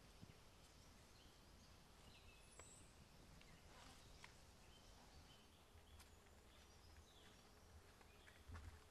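Near silence: quiet outdoor ambience with faint, scattered bird chirps and a few soft clicks.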